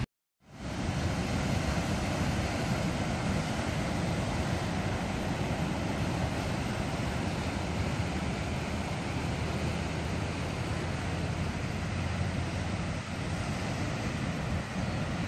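Heavy surf breaking and washing over a rocky lava shoreline: a steady, loud rumble of waves, with wind on the microphone. The sound cuts out for a moment at the very start, then fades back in.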